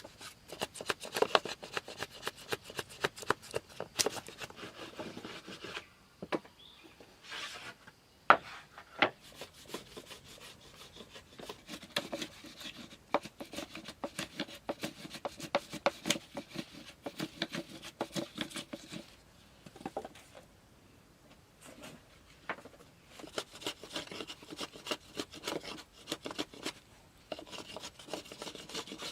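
A hand tool working wood in rapid rasping strokes, in spells of several seconds with brief pauses between.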